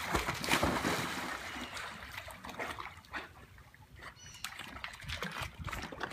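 Pool water splashing and lapping as golden retrievers paddle through it, loudest in the first second or so, then softer, irregular splashes.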